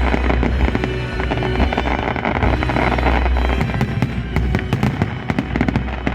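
Festive fireworks salute: a rapid string of bangs and crackling bursts, over music with a steady low bass.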